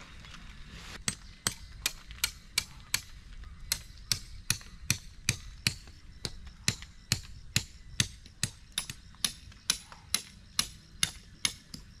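Hammer driving tent stakes into the ground: a steady run of sharp blows, about two to three a second, with a couple of short pauses and a brief ring after each.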